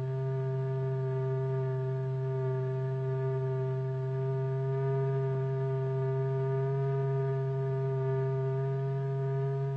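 A steady electronic tone driving a vibrating membrane in a cymatics experiment: one low note held at a constant pitch, with fainter higher overtones above it.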